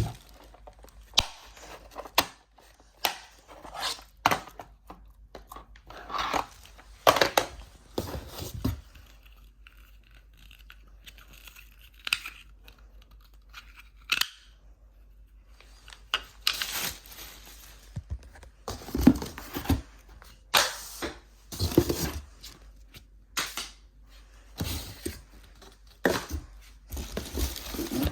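Unboxing noises: cardboard box and plastic packaging being handled, torn and crinkled, with irregular rustles and sharp knocks as parts are handled and set down, quieter for several seconds in the middle.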